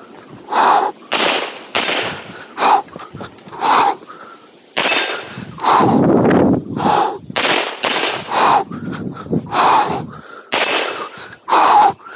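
A long series of handgun shots fired in quick strings at an uneven pace, about a dozen and a half in all. Several shots are followed by a brief thin, high-pitched ring.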